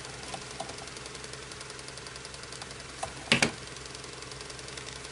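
A steady low mechanical hum with a fast, faint ticking, from a small motor running in the workroom. A few soft clicks, and one sharp double knock about three seconds in.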